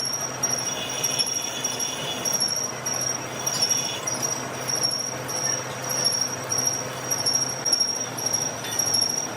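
Metalworking machine running, with a high, thin tone that pulses about twice a second over a steady low hum.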